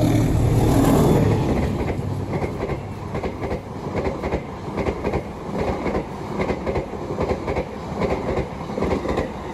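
Malabar passenger train passing close by, loudest in the first second or two as the head end goes by, then the coaches' wheels clattering over the rail joints in a steady rhythm.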